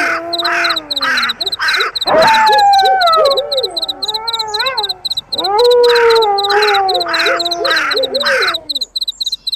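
Layered night-animal soundscape: crickets chirping steadily in a fast high pulse, crows cawing in series of harsh calls, and wolves howling in long calls that slide down in pitch, one starting about two seconds in and another about halfway through. The sound cuts off just at the end.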